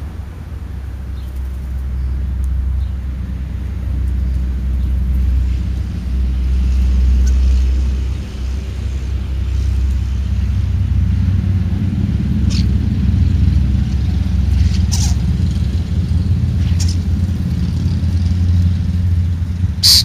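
Steady low rumble throughout, with a few brief faint high sounds in the second half and a sharp click near the end.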